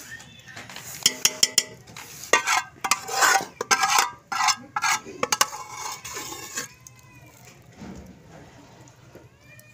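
Metal ladle clinking and scraping against steel cooking pots as chicken curry is spooned over a layer of boiled rice. The clinks come thick and fast for the first several seconds, then grow sparse and quieter.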